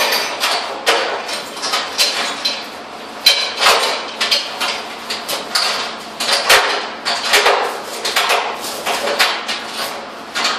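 Irregular knocks, clanks and scrapes of a heavy metal fireplace firebox being handled and moved, several sharp impacts a second.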